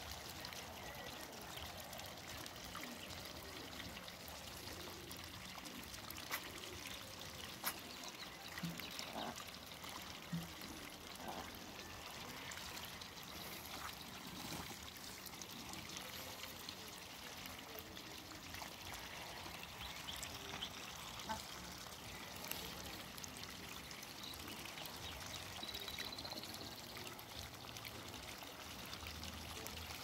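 Steady water-like trickle with scattered small splashes and bill clicks from Muscovy ducks dabbling and drinking in a shallow muddy puddle.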